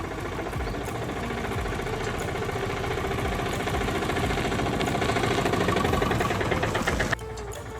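A small motor or engine running with a rapid rattle, growing louder, then cutting off suddenly about seven seconds in.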